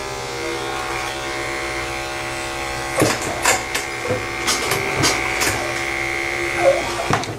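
Andis AGC Super 2-Speed electric dog clipper running with a steady hum while shaving a mat out of a dog's coat. From about three seconds in, irregular sharp clicks and knocks come through over the hum.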